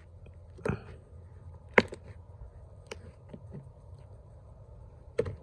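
Slime being kneaded and stretched by hand, making a few short sharp sticky smacks and pops over a low hum. The loudest comes about two seconds in.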